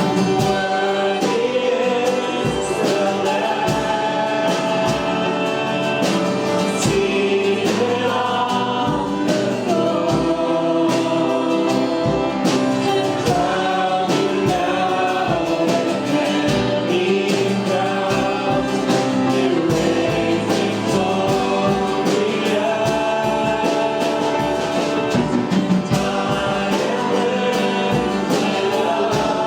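Church worship music: a group of voices singing a gospel song together over a band with a steady drum beat.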